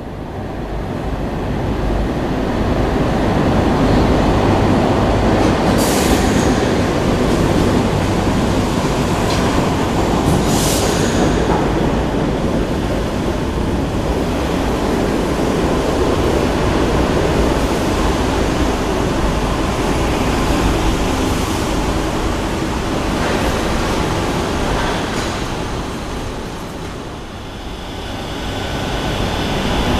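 Madrid Metro trains in an underground station: the steady rumble of a train coming out of the tunnel and running along the platform, with two short high-pitched noises about six and ten seconds in. The sound eases off, then another train's rumble builds near the end as it arrives at the platform.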